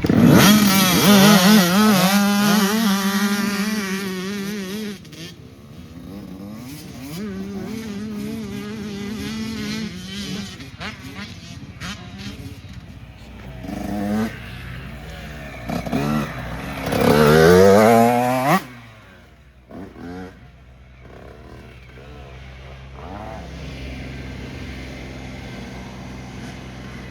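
Several 85cc two-stroke youth motocross bikes revving hard together and pulling away at a race start. The engine noise then drops to a quieter drone. About seventeen seconds in, one bike passes close with its pitch climbing before it cuts off sharply, leaving a distant engine drone.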